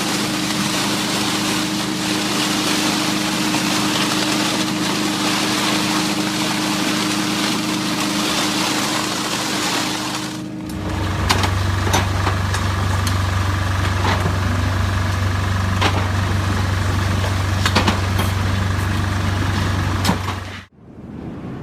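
Heavy construction machinery running steadily, an engine hum with noise over it. About ten seconds in it cuts to a different machine with a deeper, steady hum and scattered sharp clicks and knocks.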